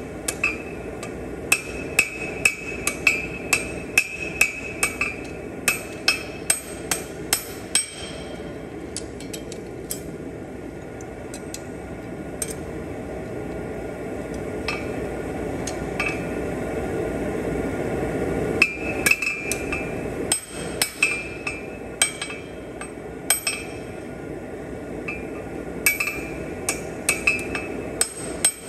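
Hand hammer striking steel on an anvil, about two ringing blows a second in runs, with a pause of several seconds near the middle where only a few light taps sound. A steady low rushing noise runs underneath and swells during the pause.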